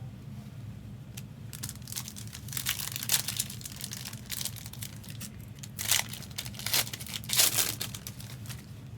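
Foil trading-card pack wrappers crinkling and tearing open in uneven bursts, loudest about six and seven and a half seconds in, over a steady low hum.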